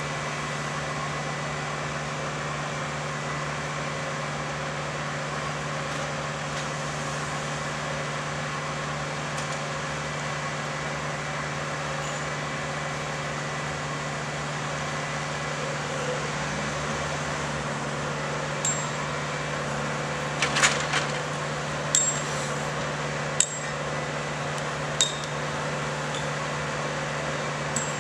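A diesel engine running steadily at idle. In the second half, a handful of sharp metallic clinks ring out over it, typical of steel track work.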